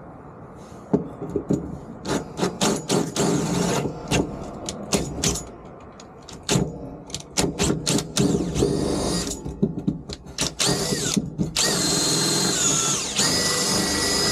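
Cordless drill with a larger bit boring out a pilot hole in a pickup's bed floor to take a rivnut. It runs in short starts and stops at first, then runs longer in the second half with a whine that climbs as it speeds up and then holds steady.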